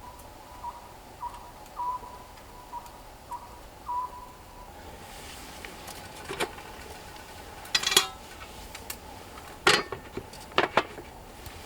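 Dishes and utensils clattering, with a few sharp knocks in the second half; the loudest come near the eighth and tenth seconds. Before them comes a series of short, high chirps, about two a second, each dropping slightly in pitch.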